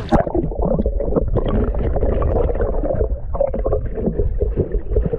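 Muffled underwater rumbling and gurgling of shallow water churning around a submerged microphone while a pink salmon is landed, with many small irregular knocks and almost no high sound.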